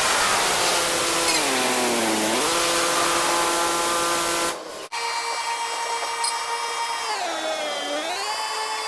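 Car washing machine's electric motor running with a steady hiss of spray; its pitch sags and recovers about two seconds in and again near the end, as the motor slows under load.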